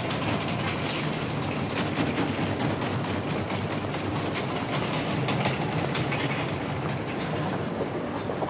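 Train running on rails, its wheels clattering steadily.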